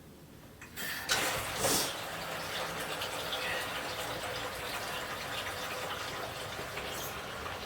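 Kitchen tap turned on about a second in, water running steadily, with a couple of brief knocks near the start.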